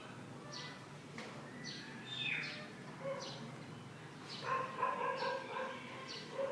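Repeated short, high animal calls, a falling chirp about every half second, joined about four and a half seconds in by a steadier pitched call.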